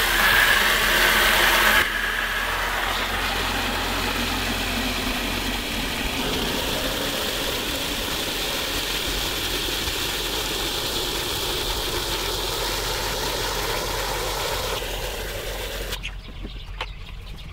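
Water running from a garden hose nozzle into a plastic five-gallon bucket, a steady rushing splash as the bucket fills, a little louder for the first two seconds. The flow stops shortly before the end.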